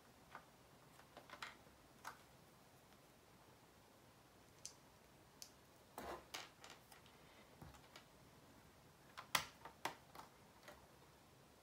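Plastic Lego pieces clicking and tapping as they are handled and pressed together: scattered small clicks, a cluster about six seconds in and the loudest few just after nine seconds.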